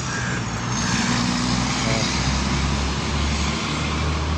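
Steady road traffic noise with a low engine rumble.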